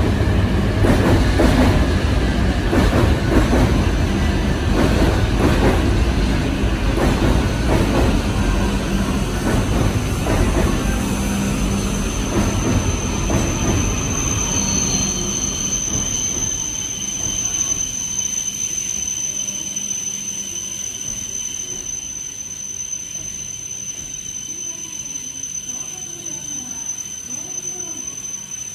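E5-series Shinkansen train moving along the neighbouring track, the rumble and rail noise of its cars fading steadily over the first half. A steady high-pitched whine comes in a few seconds in and grows louder as the rumble dies away.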